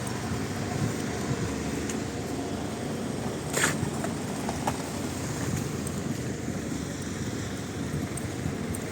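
Steady hum of engines running outdoors, with a short hissing burst about three and a half seconds in.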